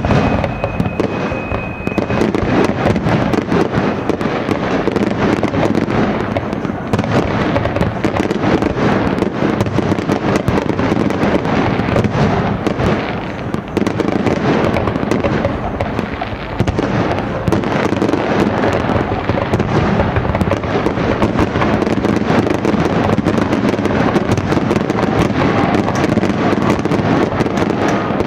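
Fireworks display going off continuously: a dense, unbroken crackle of many rapid bangs and pops.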